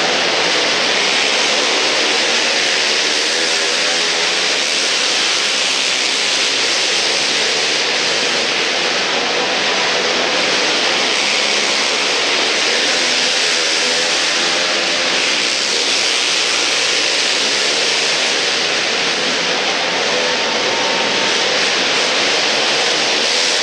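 Several racing quads (ATVs) running laps together on an indoor dirt track, their engines blending into one loud, steady drone with overlapping pitches that rise and fall as the riders work the throttles.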